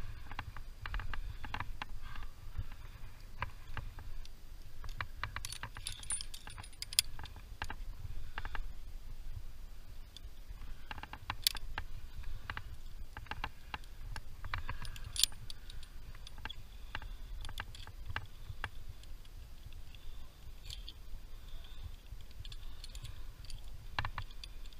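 Metal climbing hardware clinking and jangling: carabiners and quickdraws knocking against the chains and bolt hangers of a sport anchor while it is being clipped, a scatter of sharp clinks with a few brighter jingles. A low steady rumble runs underneath.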